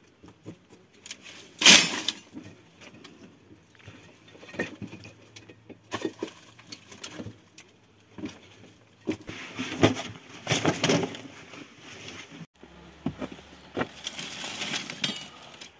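A bundle of dry sticks and brushwood being dropped and handled on rocky ground: irregular cracks, clatters and rustles, loudest about two seconds in and again around ten to eleven seconds.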